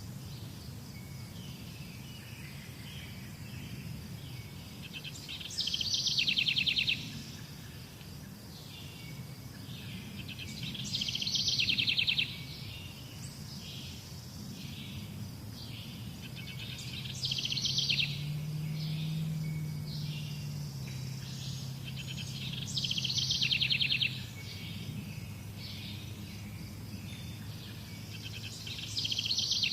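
A songbird repeats the same short, rapid trilled phrase about every six seconds, five times, with fainter chirps between phrases over a steady low rumble.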